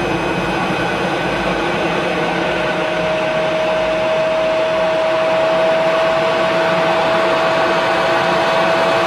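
Cockpit noise of an L-29 Delfín jet trainer in flight: the steady rush of its single turbojet and the airflow, heard inside the canopy. A thin steady whine sets in about two seconds in and slowly rises in pitch as the overall level creeps up.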